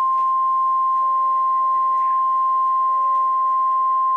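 NOAA Weather Radio's 1050 Hz warning alarm tone: one steady, unbroken pure tone that signals an alert broadcast is about to follow, here a severe thunderstorm watch.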